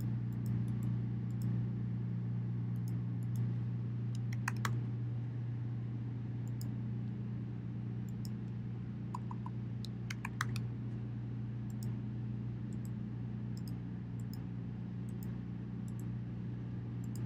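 Computer keyboard typing and mouse clicks: scattered single keystrokes, with quick runs of keys about four seconds in and again about ten seconds in. A steady low hum runs underneath.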